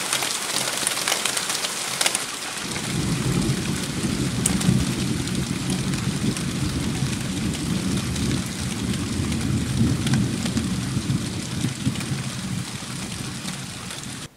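Rain falling steadily as a hiss with many small drop clicks; about three seconds in, a long low roll of thunder comes in and rumbles for some ten seconds, thinning out near the end.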